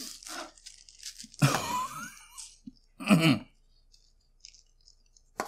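Crinkling and rustling of bubble-wrap and plastic packaging being handled, with a short voiced grunt about three seconds in and a sharp click near the end.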